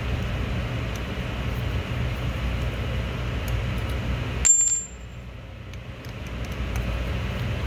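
A steel bolt dropped onto a concrete floor: one sharp clink with a brief high ring, about four and a half seconds in. Under it runs a steady low machinery hum.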